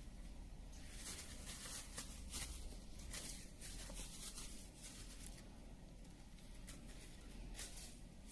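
Faint scratching and rustling in short bursts, over a low room hum.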